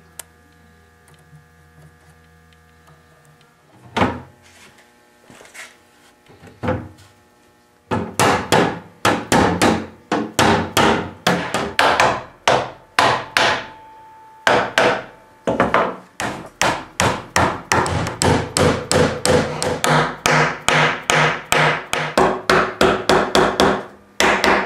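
Hammer driving tapered square wooden pegs into glued holes through the back panel of a wooden chest. A few scattered knocks come first, then from about eight seconds in a fast, steady run of sharp strikes, about three a second.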